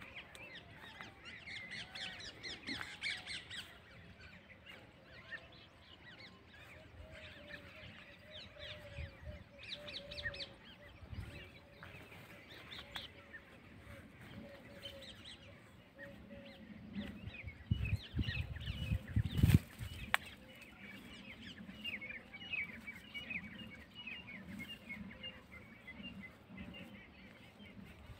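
Birds chirping and calling in many short, rapid notes, with one wavering lower-pitched call held for several seconds in the middle. Low thumps and rumbling come about two-thirds of the way through, the loudest moment.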